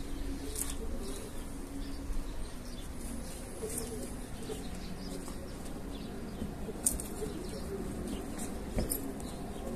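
Pigeons cooing softly in the background, with a few short knocks of a hoe blade striking the soil.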